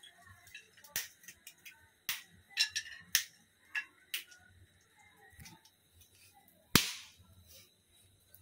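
Wood fire in a homa fire pit crackling: scattered sharp pops and cracks from the burning sticks, with one loud crack about seven seconds in.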